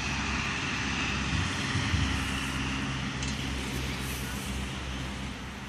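Outdoor background noise: a steady low hum with hiss, like distant traffic or an engine, and no speech.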